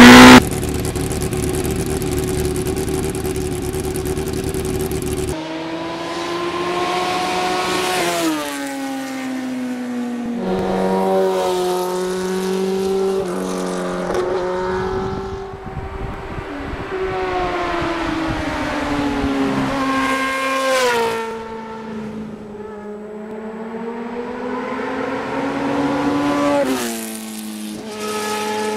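Motorcycle engine accelerating along a road, its pitch repeatedly climbing, then dropping, over several runs.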